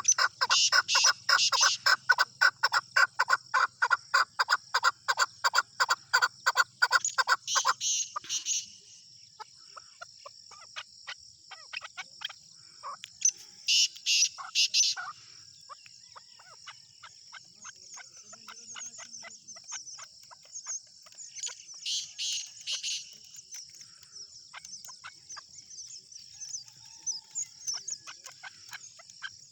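Chukar partridge calling a fast, even run of chuk notes, several a second, for about eight seconds, then stopping. After that a steady high insect trill carries on, with two short bursts of calling, one near the middle and one about two-thirds through.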